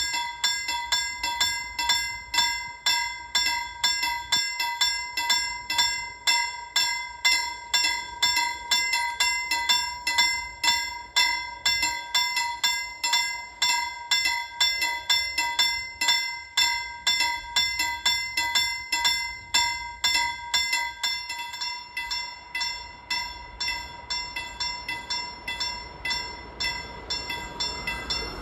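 Level-crossing warning bell ringing in rapid, even strokes, signalling an approaching train. In the last couple of seconds a train's rumble rises underneath it as the train draws near.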